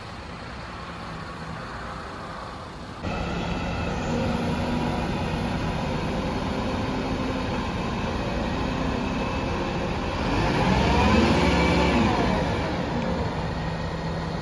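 Heavy vehicle engine running at a construction site. It gets suddenly louder about three seconds in, and about ten seconds in it revs up and falls back again.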